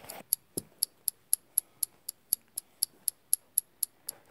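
Alarm clock ticking steadily, about four sharp, high ticks a second, with a faint knock or two near the start.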